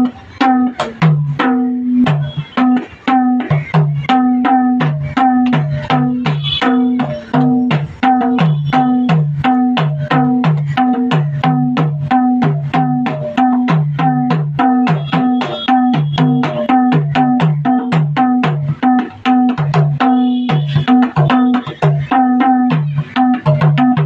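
Madal, a Nepali two-headed hand drum, played in a fast, steady rhythm. Deep low strokes alternate with higher ringing ones.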